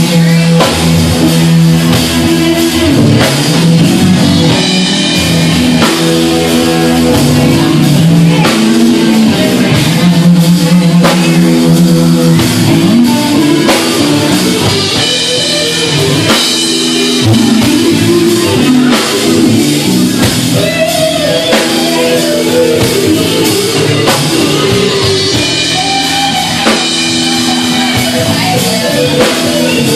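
Live rock band playing: electric guitar over a drum kit.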